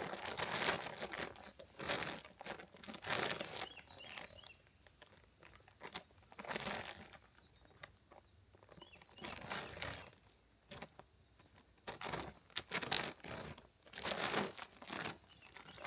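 Irregular rustling and crunching in dry leaf litter and brush, coming in bursts every few seconds, over a steady high-pitched insect drone.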